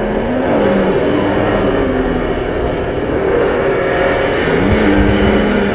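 Dense, droning experimental music from a cassette album: a thick continuous wash with tones that glide up and down in pitch.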